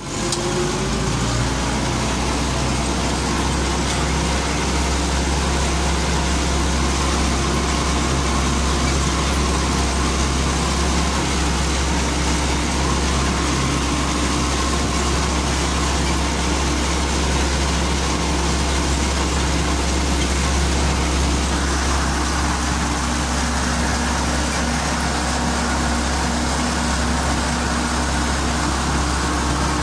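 Tractor's diesel engine running steadily under load while pulling a disc harrow across the field, heard from inside the cab as a constant low drone.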